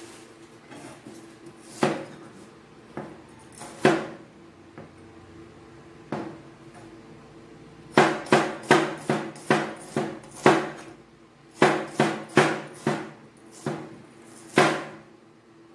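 A cleaver chopping an onion on a white plastic cutting board: a couple of single knocks, then from about eight seconds in quick runs of sharp chops, about three a second.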